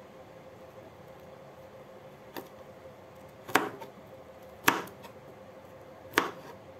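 Chef's knife chopping broccoli florets, the blade striking through onto the cutting board. There are four sharp knocks a second or so apart, starting about two seconds in, the first faint and the other three louder. A faint steady hum runs underneath.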